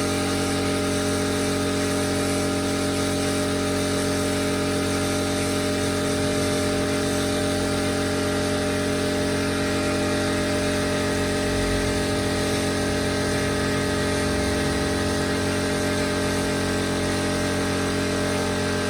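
Air compressor's motor running steadily with an even, unchanging hum.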